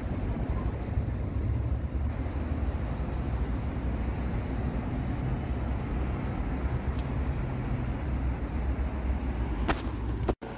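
Steady low rumble of outdoor noise, broken by a sudden brief drop to silence near the end.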